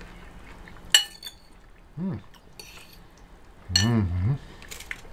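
Metal fork clinking against a bowl as a man picks up a bite, with two short hums from him, the second longer and the loudest sound, about four seconds in.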